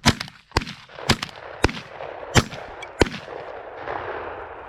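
A volley of six shotgun blasts fired at geese, about half a second apart over three seconds, with a rushing hiss between and after the later shots.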